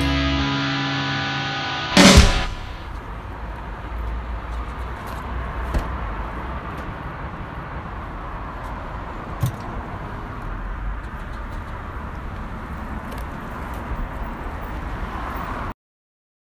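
The last chord of a distorted electric guitar rings and fades, then a single loud hit about two seconds in. After that comes a steady low background noise with a few faint clicks, which cuts off abruptly near the end.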